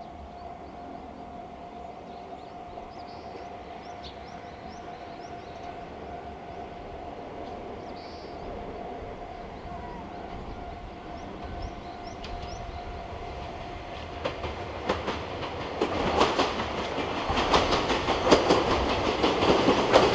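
Chichibu Railway train approaching and running over a level crossing, its wheel clatter growing louder from about 15 seconds in. Before that there is a steady high tone and a few faint bird chirps.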